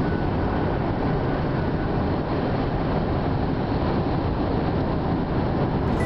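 Steady low rumble of a car driving at speed, heard from inside the car: tyre and road noise with wind.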